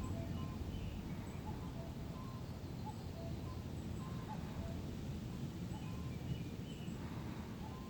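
Faint songbird calls: short, scattered chirps at several pitches, over a steady low background rumble.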